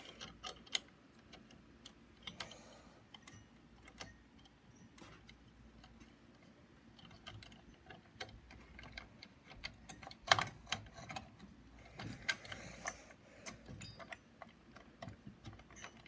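Scattered small clicks and ticks of plastic and metal as fingers work a CPU heat sink's retention clip onto its bracket on the motherboard, which is hard to get on. The loudest clicks come in a cluster about ten seconds in.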